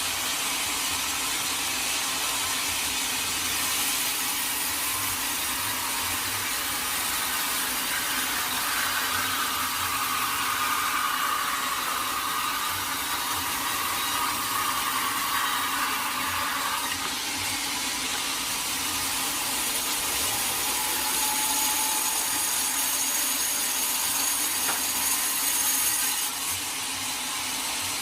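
Sawmill saw cutting through a teak log: a steady, high-pitched sawing noise, with a brighter whine for several seconds in the middle.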